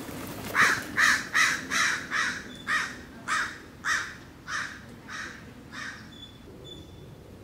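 A corvid calling about eleven times in a row, short harsh calls that slow slightly and fade over about five seconds.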